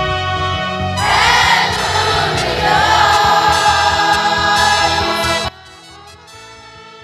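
Children's choir singing with trumpets: a short trumpet phrase, then the full choir comes in about a second in. The singing is loud, then drops suddenly to a much softer passage about five and a half seconds in.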